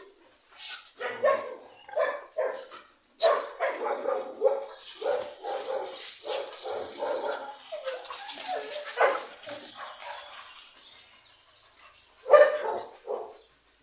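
Several dogs barking and yipping in short repeated outbursts as they play-fight, with a rustling, scuffling noise from about five to eleven seconds in.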